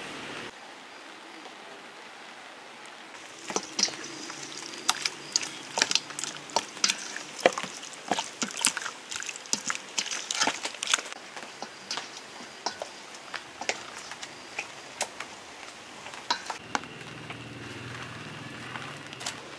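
Hand mixing raw chicken pieces in a wet marinade in a stainless steel bowl: a quick run of squelches and slaps from about three and a half seconds in, thinning out after about eleven seconds.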